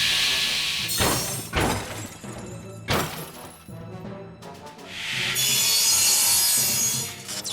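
Background music with added cartoon sound effects: a hissing noise at the start, three sharp crashing hits about one, one and a half and three seconds in, then a longer hiss near the end.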